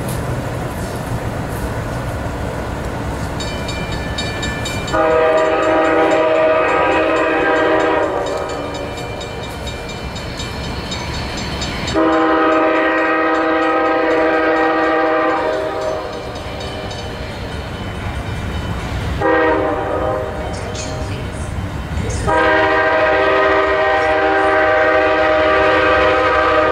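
Amtrak locomotive air horn blowing the grade-crossing signal: long, long, short, long, each blast a multi-note chord. Beneath it runs the steady low rumble of the approaching train.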